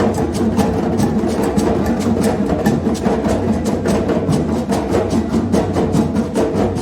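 Percussion group playing a fast, steady rhythm on drums, several sharp strokes a second over a deep drum pulse.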